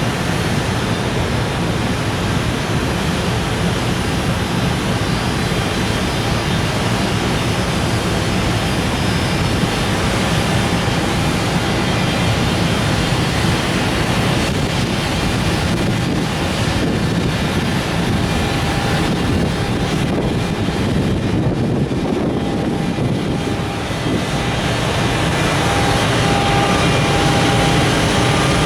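Container freight train rolling past at close range: a steady, loud rumble and rush of wheels on rail, with wind on the microphone.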